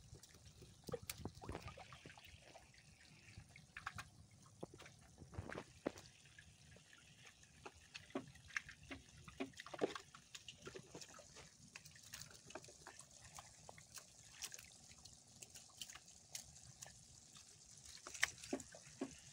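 Water dripping and trickling with scattered soft, irregular wet taps and clicks, from a freshly landed net catch of small fish and weed lying in water in the bottom of a boat.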